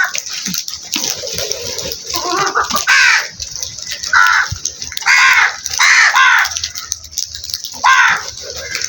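Crows cawing: a series of short, harsh caws, several in quick succession near the middle and one more near the end, over a steady high hiss.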